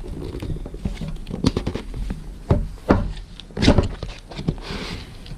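Cardboard product box being opened by hand: a string of knocks, clicks and scrapes as the lid and contents are handled, with a short rustle near the end.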